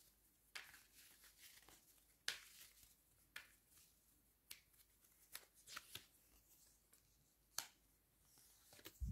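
Faint, scattered flicks and soft slaps of tarot cards being drawn and laid on a table. The loudest slap comes near the end.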